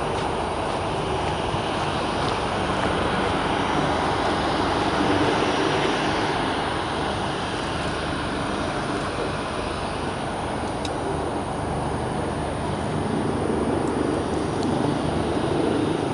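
Boeing 787 Dreamliner on final approach, its jet engines making a steady rushing noise from the ground that swells a little twice.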